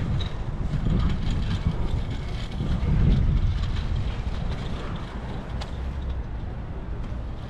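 Low, uneven outdoor rumble of wind buffeting the microphone.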